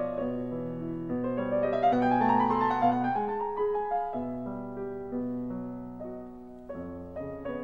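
Background piano music: held low chords under a melody, with a quick rising run of notes about two seconds in and a new chord struck near the end.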